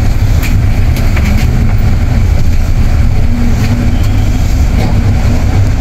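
Steady low rumble of a bus's engine and road noise, heard from inside the cabin, with a few faint clicks.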